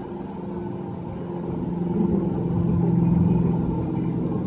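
Small ride boat's motor humming steadily as it moves through the water, swelling louder about two to three seconds in.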